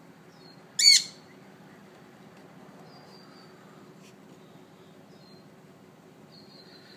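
A parrot gives one loud, harsh screech about a second in.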